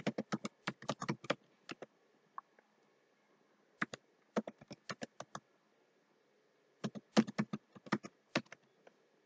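Computer keyboard being typed on: three quick bursts of keystroke clicks with short pauses between them.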